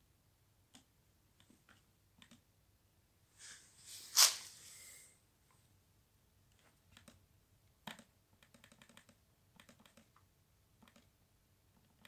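Scattered clicks on a Lenovo IdeaPad S145 laptop's touchpad and keys, single clicks with a quicker run of them about eight and a half seconds in. A louder noisy burst stands out about four seconds in.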